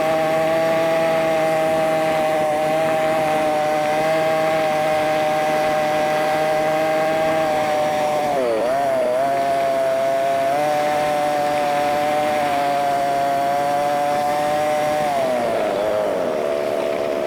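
ATV engine running steadily under throttle, pitched up high by the sped-up playback. Its pitch dips and recovers about eight seconds in and sags again near the end, as the throttle eases off.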